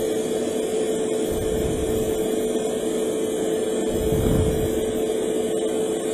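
Hobby spray booth's extractor fan running with a steady hum, holding one constant tone. The sound swells briefly about four seconds in.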